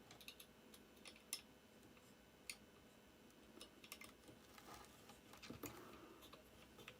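Near silence broken by faint, scattered small clicks and taps as a capacitor's wire leads are fitted into the holes of a circuit board.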